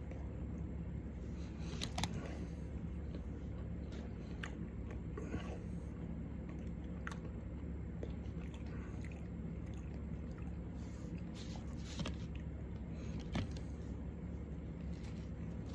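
A man chewing a mouthful of burger, with scattered mouth clicks and smacks, over a steady low hum.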